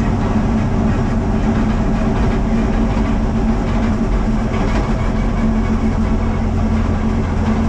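Race car engine running at a steady pitch under way, heard from inside the stripped, caged cabin along with a loud rumble of road and wind noise.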